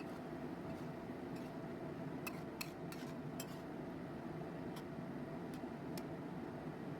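Light clinks of kitchen utensils against cookware, a quick cluster a couple of seconds in and a few single taps later, over a steady low background hum.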